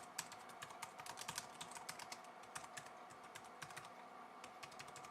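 Keys clicking on a compact, low-profile Bluetooth keyboard as someone types quickly in short irregular runs; the keystrokes are light and crisp.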